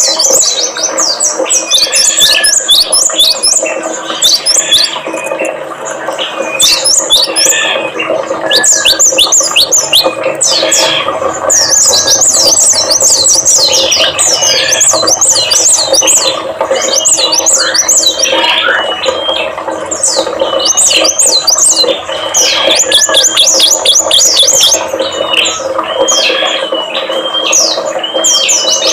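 Dense, unbroken chorus of small songbirds chirping and trilling rapidly: layered lure-recording song of cinereous tit, prinia and oriental white-eye. A steady low hum runs underneath.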